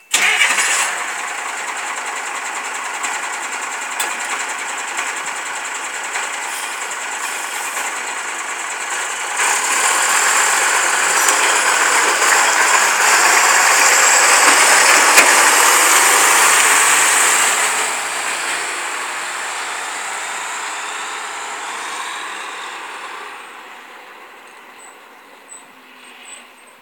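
BMY M931A2 5-ton military truck's 8.3-litre Cummins turbo diesel running. It grows louder as the truck pulls past, with a rising turbo whistle, then fades as the truck drives away down the street.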